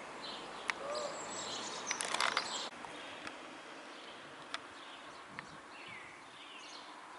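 Outdoor street ambience with small birds chirping on and off. A short, loud, crackly burst of noise about two seconds in cuts off suddenly.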